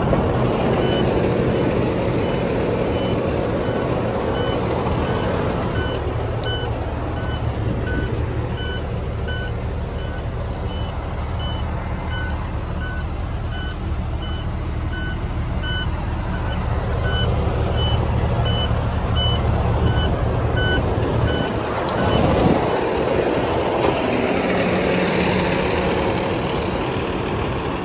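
Cummins ISX15 inline-six diesel idling steadily in a parked International ProStar+ tractor. An electronic warning beeper repeats about twice a second over it and stops a few seconds before the end.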